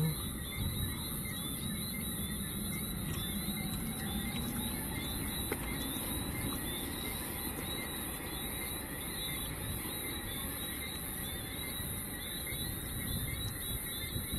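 Boeing C-17 Globemaster III's four turbofan engines running steadily at taxi power as the aircraft turns on the runway.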